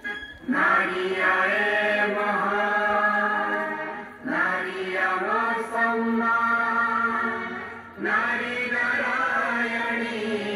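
Chant-like song, sung in three long phrases of held, gliding notes with short breaks between them.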